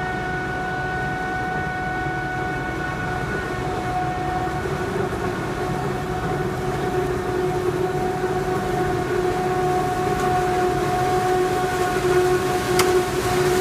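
Claas Jaguar 950 self-propelled forage harvester chopping maize: a steady high whine from the chopper over a low engine rumble. It grows louder as the machine comes closer.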